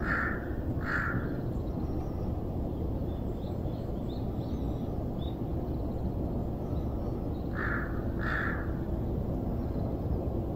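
A crow cawing: two harsh caws right at the start and two more about eight seconds in, over a steady low outdoor rumble, with a few faint small-bird chirps in between.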